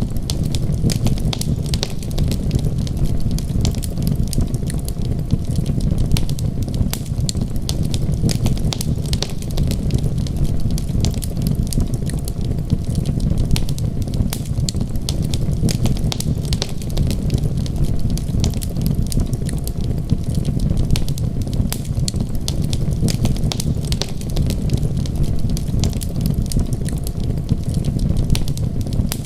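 Wood fire crackling, with many small irregular pops over a steady low rumble.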